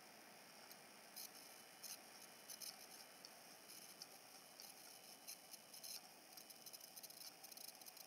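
Near silence: faint hiss with scattered soft high-pitched ticks.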